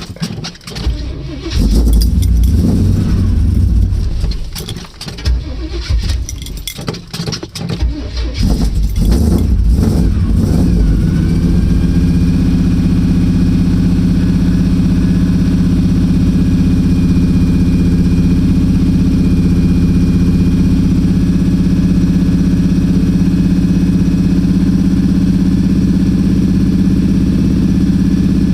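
The 454 big-block V8 of a 1984 Chevrolet K5 Blazer is started cold. It catches about two seconds in and runs unevenly for several seconds, then settles into a steady idle about ten seconds in.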